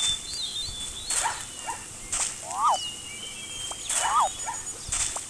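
Zebras' high yelping barks, each call rising and then falling in pitch, repeating every second or so, with sharp swishing sounds between them and thin whistling higher up.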